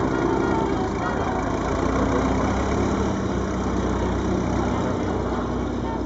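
Boeing-Stearman PT-17 biplane's radial engine droning steadily as the aircraft flies overhead, swelling slightly about two seconds in.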